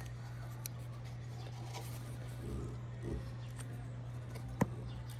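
Scratchy rubbing and handling sounds of hands pulling old tape off a bundle of wires, with one sharp click about four and a half seconds in, over a steady low hum.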